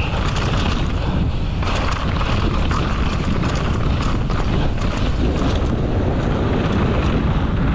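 Wind rushing over the action camera's microphone at downhill-racing speed, with the mountain bike's tyres rolling over dirt and rocks and the bike rattling and clattering over the bumps.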